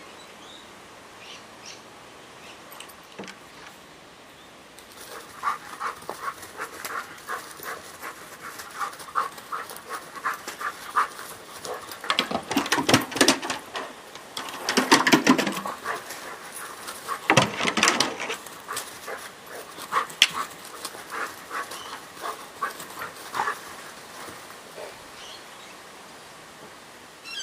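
A dog panting hard. Its breaths make a rapid run of short strokes that starts about five seconds in and is loudest in the middle.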